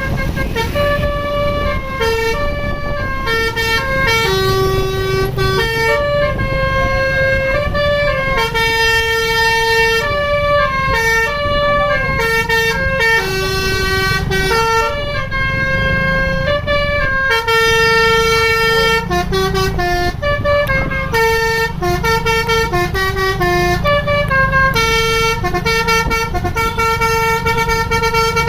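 Bus telolet horn, a multi-tone musical air horn on an Indonesian bus, playing a long tune note by note, with the bus's engine rumbling underneath.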